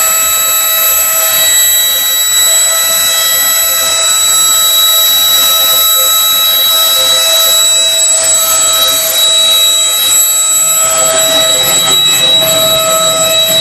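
CNC wood-carving router's spindle running with a steady high whine. A lower rumbling noise joins about eleven seconds in.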